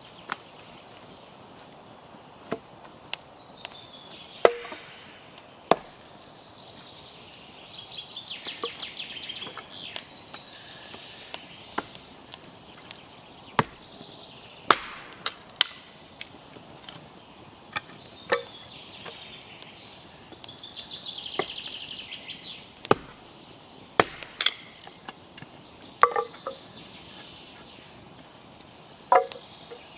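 Small axe chopping and splitting wood on a chopping block: about a dozen sharp single strikes, spaced unevenly from under a second to several seconds apart.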